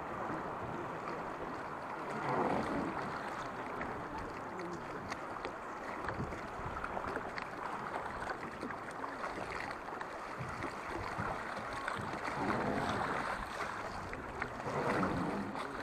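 Fast river water rushing and splashing along the side of a wooden boat running through rapids. The rush swells louder about two seconds in, again around twelve to thirteen seconds, and near the end.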